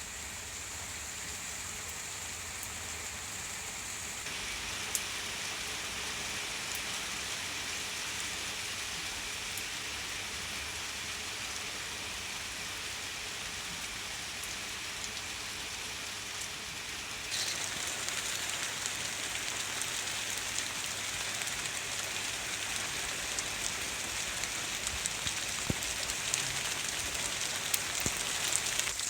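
Steady summer rain falling on flowers, an even hiss with no voices. It changes abruptly about four seconds in and again past halfway, and individual drops tick sharply near the end.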